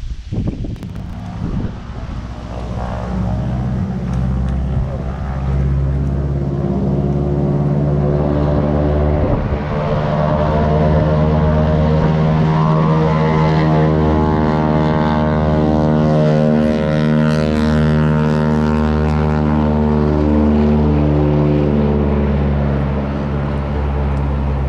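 An engine running steadily, at much the same pitch throughout, growing louder over the first several seconds.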